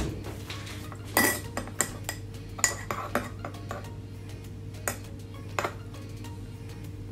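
A teaspoon clinking against a ceramic mug while tea is stirred: about six separate, irregularly spaced clinks, each with a short bright ring.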